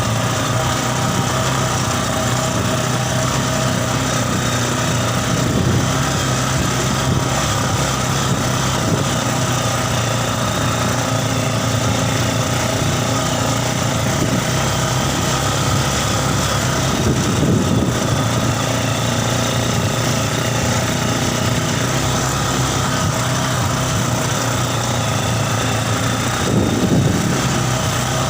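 Yamaha Scorpio Z 225 cc single-cylinder four-stroke motorcycle engine in a mini buggy, running steadily at an even pitch. It swells briefly louder twice: a little past halfway and near the end.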